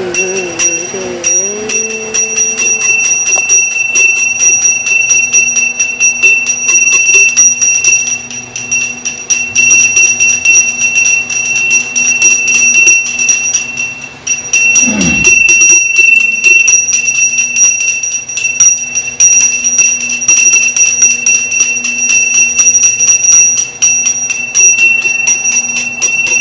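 A bell rung rapidly and without pause, its strikes blurring into one steady ring. A short low sound falls in pitch about fifteen seconds in.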